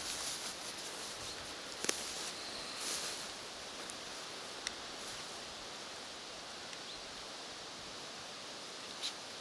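Dry grass rustling as a puppy moves through it, over a steady hiss, with a few short sharp clicks. The rustling is strongest in the first three seconds.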